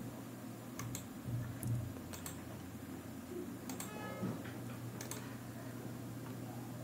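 A handful of sparse clicks from a computer keyboard and mouse, over a faint steady low hum.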